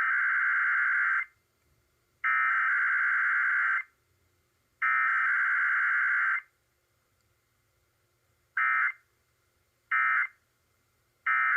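Emergency Alert System SAME data tones: three buzzy digital header bursts of about a second and a half each, then three short end-of-message bursts, marking the start of a broadcast EAS test.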